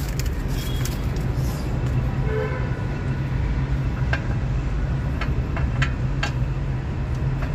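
A steady low mechanical hum, with a few light metal clicks from handling the parts of a truck's drum brake shoes over a few seconds in the second half.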